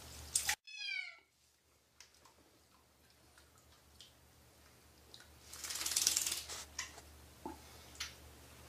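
A kitten gives one short meow, falling in pitch, about a second in. Faint drips and taps follow, with a brief splash of bath water around six seconds in.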